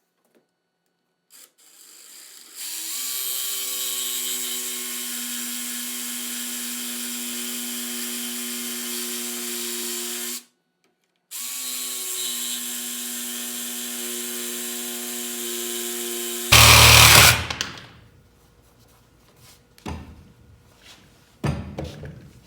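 Battery-powered jigsaw running at a steady pitch as it cuts along a marked line in a wooden board, stopping briefly and starting again for a second cut. Near the end comes a loud noisy clatter lasting about a second, followed by a couple of light knocks.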